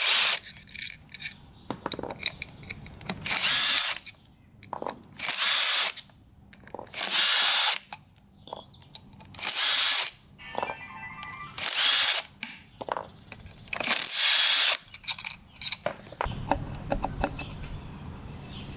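A handheld power driver spinning bolts out of the clutch-side cover of a 2004 Yamaha YZ250F engine: about six short runs, roughly two seconds apart, with small clinks of bolts and tools between them.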